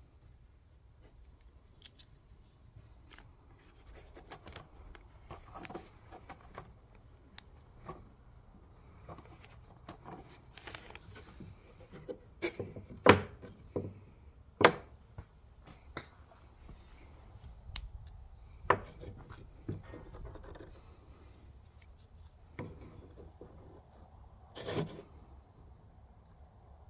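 Hand work at a shop bench: intermittent scraping and rubbing, with scattered sharp knocks, a few louder ones around the middle and one near the end.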